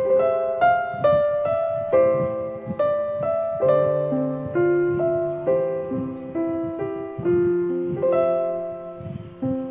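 Background piano music: a slow melody of single notes, each struck and then fading before the next.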